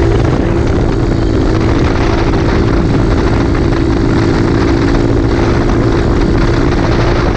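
Honda CT70 mini trail bike's engine running at a steady speed while riding, its pitch holding even. Heavy wind buffeting on the camera microphone runs under it.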